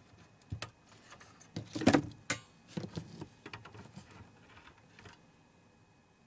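Handling clicks and knocks on an opened DLP projector as it is being switched on, the loudest cluster about two seconds in, then scattered lighter clicks that die away after about five seconds.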